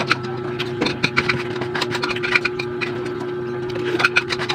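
Close-up eating sounds: chewing with many small irregular clicks, crackles and scrapes, over a steady low hum.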